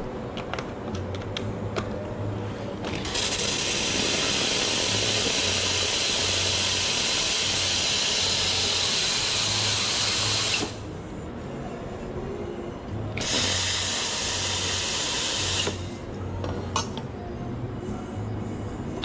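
Espresso machine steam wand hissing in two bursts: one of about seven seconds, then a shorter one a couple of seconds later. Light clicks of cups and metalware come before the first burst.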